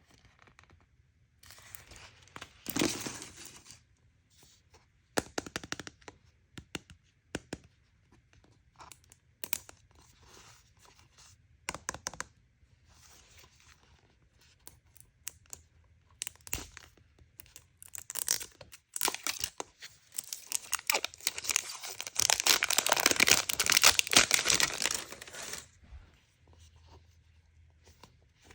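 Toy packaging being opened by hand: scattered crinkles and crackles, then a louder stretch of tearing lasting about five seconds, starting a little after twenty seconds in.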